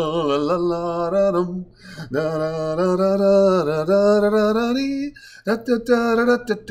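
A man singing long, wavering held notes without clear words, in phrases broken by short pauses about two seconds and five seconds in; near the end the singing turns to shorter, choppier syllables.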